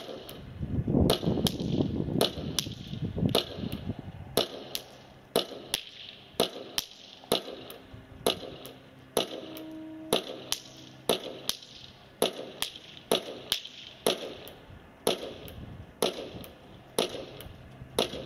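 Maruzen Walther P99 gas blowback airsoft pistol firing BBs at a paper target in a long, steady string of sharp cracks, about two a second.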